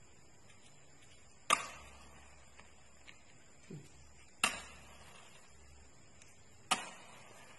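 Safety matches struck against a matchbox, three times, each a sharp scrape that trails off briefly.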